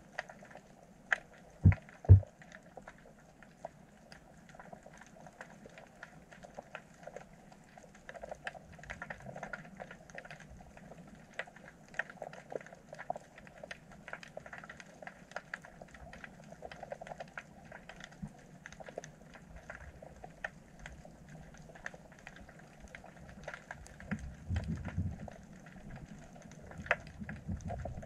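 Underwater ambience picked up by a submerged camera: a steady faint crackling of small clicks, with two sharp low knocks about two seconds in and a low rumble near the end.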